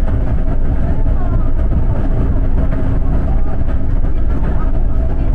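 Steady running noise of a moving city bus heard from inside the cabin: a heavy low rumble of engine and road, with a steady hum over it.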